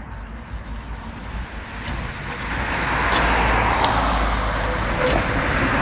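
A car passes close by on the road, its tyre noise swelling over a few seconds to the loudest sound, over an approaching ČKD Tatra T3 tram running on its rails, with a few sharp clicks.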